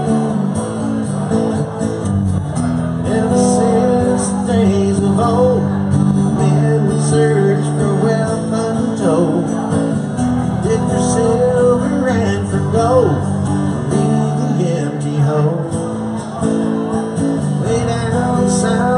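Live band music: a guitar-led passage of steady chords with no lyrics, and a few bent notes about halfway through.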